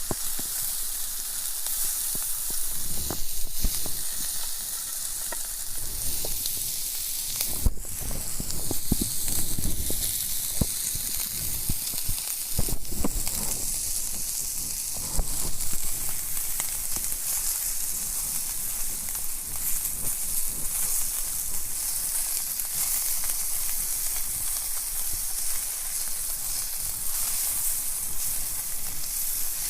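Food frying in a small thin-walled camping frying pan, a steady sizzle, with a few short knocks of the pan or utensil in the first half.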